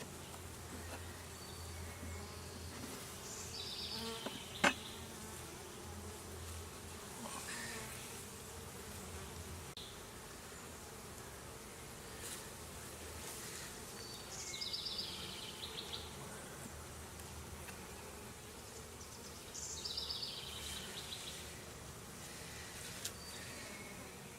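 Honey bees buzzing steadily around an opened hive during a frame inspection, with a single sharp click about five seconds in.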